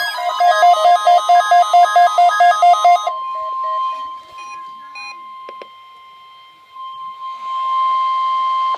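Fast repeating electronic alert beeps for about three seconds, then the steady 1050 Hz NOAA Weather Radio warning alarm tone. The tone fades in the middle, with a couple of clicks, and comes back louder near the end.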